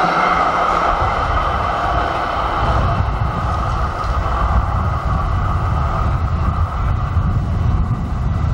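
Melbourne electric tram passing and running away, its whine fading over the first few seconds. A low rumble then takes over.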